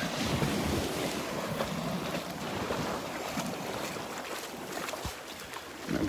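Small Gulf of Mexico waves breaking and washing up the sand, a steady rush of surf with wind on the microphone, easing off slightly near the end.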